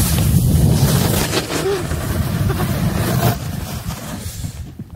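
Wind buffeting the microphone, a loud low rumble with a rushing hiss, that fades away after about three seconds.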